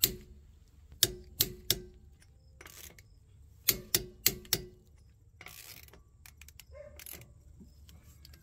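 Click-type torque wrench set at 120 foot-pounds clicking as lug nuts are tightened: the click that signals the set torque is reached. Sharp metallic clicks come in quick groups about a third of a second apart, one at the start, three about a second in and four a little before the middle, each with a short ring.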